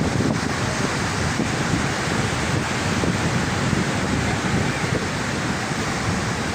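Sea surf washing on a beach, a steady rushing noise, with wind rumbling on the microphone.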